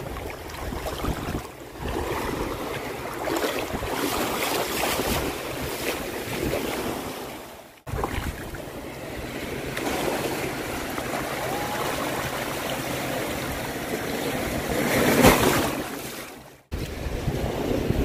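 Small ocean waves washing and splashing in shallow surf around the microphone, with wind buffeting it. The wash swells briefly near the end and cuts out abruptly twice.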